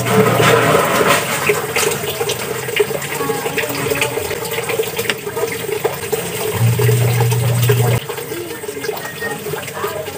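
Running water, a steady rush with small wet clicks and splashes, dropping off about eight seconds in. A low hum sounds briefly near the start and again about seven seconds in.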